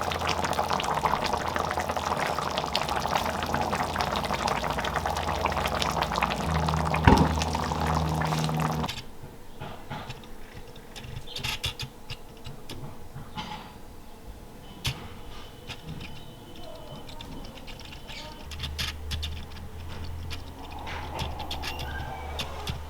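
Food cooking in a hot pan with a dense crackling, and a single loud knock about seven seconds in. About nine seconds in the sound cuts off suddenly to a much quieter stretch with only scattered light taps and clicks.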